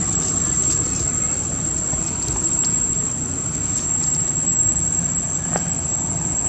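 A continuous high-pitched insect drone, typical of cicadas, over a steady low rumble, with a few faint crackles of dry leaves.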